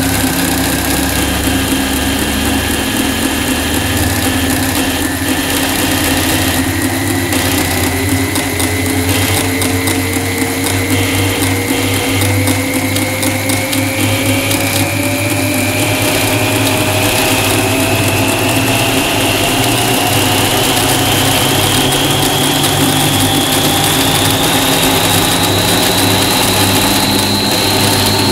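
Jones electric sewing machine running with a steady hum, layered with electronic tones that glide slowly and steadily upward in pitch.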